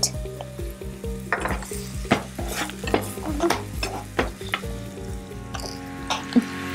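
Chopped white onion and garlic sizzling in hot olive oil in a pan while a utensil stirs them, with repeated short scrapes and clicks against the pan.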